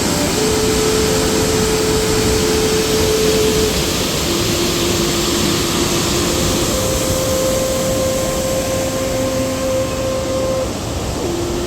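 Loud, steady roar of water pouring over a concrete dam, with a few long held tones that change pitch every few seconds.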